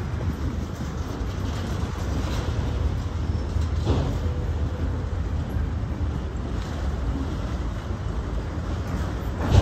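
Freight train rolling past with a steady low rumble and wheel noise, broken by a sharper knock about four seconds in and again near the end.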